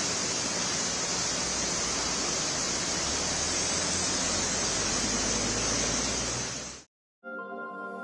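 Heavy rain pouring down in a steady, dense hiss that fades out about seven seconds in. A short electronic music jingle starts right after.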